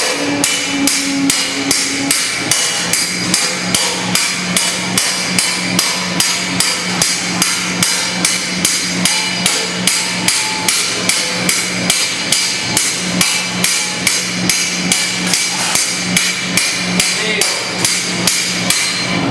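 Bronze cymbal being hand-hammered: an even, unbroken run of sharp hammer blows, about two and a half a second, with the cymbal ringing between strikes.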